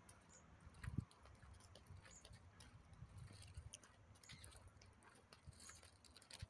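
Quiet footsteps on an asphalt road, soft and irregular, with a louder thump about a second in.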